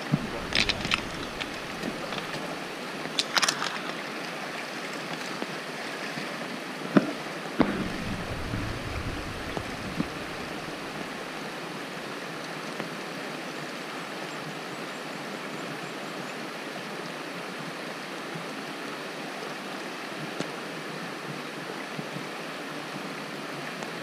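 Green plastic gold pan being dipped, swirled and washed in a shallow creek pool, with water sloshing and splashing a few times in the first several seconds, over the steady rush of the flowing creek.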